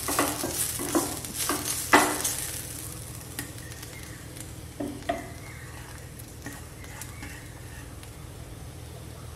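Wooden spatula stirring and scraping grated beetroot in a nonstick frying pan, several quick strokes in the first two seconds over a steady sizzle. Then mostly the sizzle, with a few light knocks as grated coconut is added to the pan.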